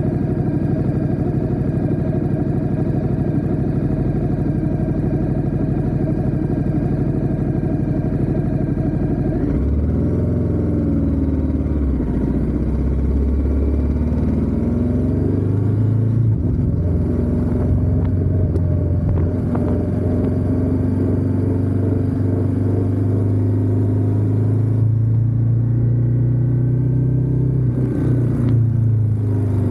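Ducati Diavel 1260S's 1262 cc V-twin engine running steadily. About ten seconds in it accelerates away, its pitch rising and dropping through gear changes, then settles into a steadier run.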